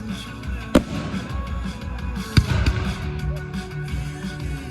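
Fireworks bursting, two sharp bangs, one about a second in and one about halfway, over music playing through a loudspeaker system.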